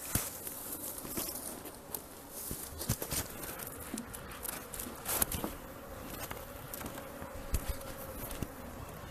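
A swarm of Apis honeybees buzzing steadily, with occasional short knocks and rustles.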